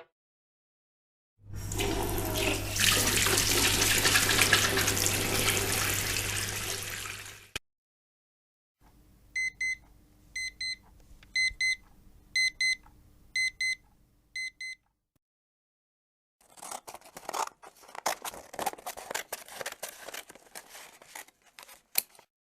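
A sequence of separate household sounds: about six seconds of rushing water over a low hum, then, after a pause, electronic beeping in short pairs, like an alarm clock, for about six seconds, then irregular clicking and rattling that is not identified.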